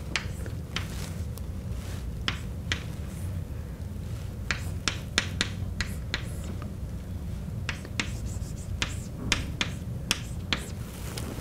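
Chalk writing on a blackboard: a string of sharp, irregular taps as the chalk strikes and lifts from the board, over a steady low hum.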